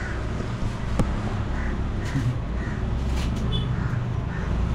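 Crows cawing several times in short calls over a steady low hum, with a single sharp click about a second in.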